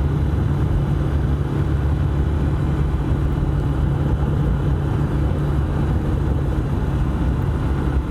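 Haojue Chopper Road 150 motorcycle running at a steady cruising speed, with wind rush and a steady low drone. The rider puts the drone down to the rear rack and aluminium top box vibrating, which makes the engine note sound deeper.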